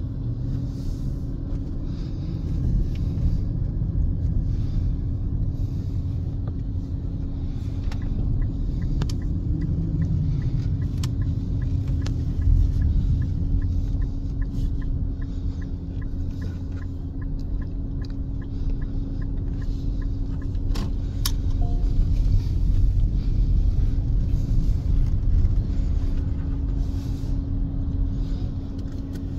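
Cabin noise of a moving car: low road and engine rumble with a steady hum throughout. About a third of the way in, a quick regular ticking runs for several seconds.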